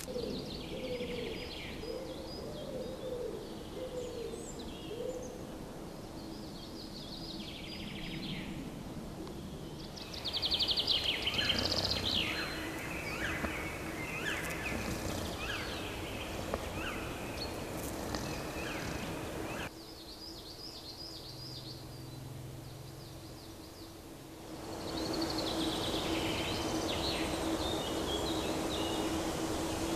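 Woodland songbirds singing, several different short phrases and trills one after another, over a steady background hiss. The birdsong grows louder or quieter abruptly three times.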